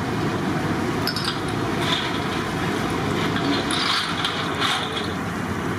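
Medu vadas deep-frying in a kadai of hot oil: a steady sizzle that flares up briefly a few times, over a low steady rush.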